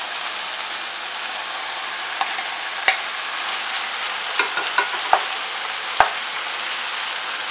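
Chicken stir-fry with lemongrass paste and chili sizzling in a hot pan, a steady hiss, with a few sharp clicks of a utensil against the pan as it is stirred.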